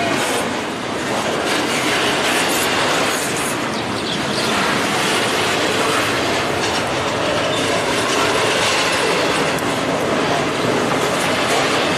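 Double-stack intermodal freight train's well cars rolling past close by at speed: a steady, loud noise of steel wheels on rail with no let-up.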